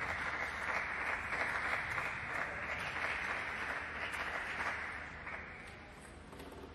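Applause from spectators: many hands clapping, dying away about five seconds in.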